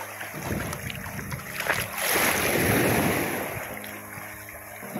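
Sea water washing and surging, with wind noise on the microphone; a louder swell of wash comes about two seconds in and dies down over the next second or two.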